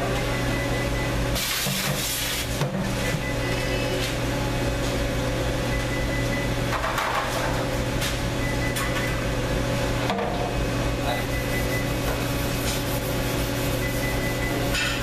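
Steady hum of commercial kitchen equipment: a constant low electrical drone with a thin steady whine above it. A short hiss comes about one and a half seconds in, and a fainter one about seven seconds in.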